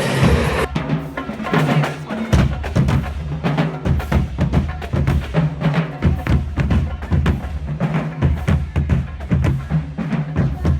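Music with a heavy bass line and a steady drum beat, cutting in abruptly about a second in after a moment of crowd noise.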